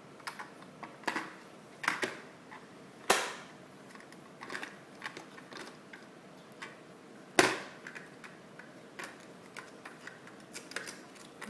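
Scattered light clicks and knocks, with two sharper, louder knocks about three seconds and seven and a half seconds in.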